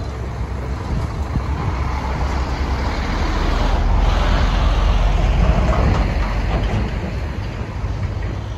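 Road traffic rumble: a passing heavy vehicle swells to its loudest about halfway and fades, over a low wind rumble on the microphone.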